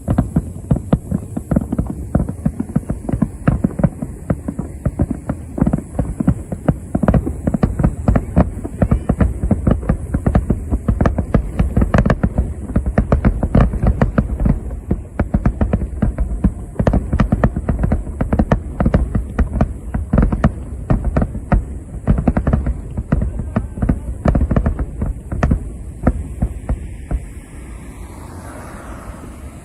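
Aerial firework shells bursting in a rapid, continuous barrage, a dense run of deep booms and cracks heard from afar. The bursts thin out near the end.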